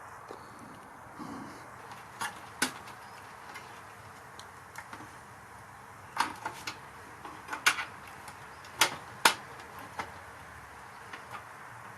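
A dozen or so sharp clicks and knocks at irregular intervals over a steady faint hiss, the loudest in a cluster about two-thirds of the way through, like small hard objects being handled and set down during work on the tuner.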